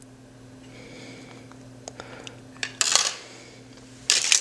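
Handling clatter of a magneto-optical disc cartridge being taken apart: small clicks, then two louder rattling clatters, about three seconds in and just before the end, as the disc is worked out of its plastic caddy. A low steady hum runs underneath.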